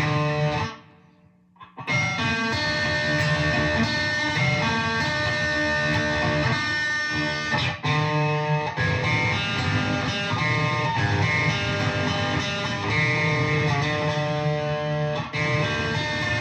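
Electric guitar played through fuzz in an instrumental solo break, with a brief drop to near silence about a second in before the playing resumes.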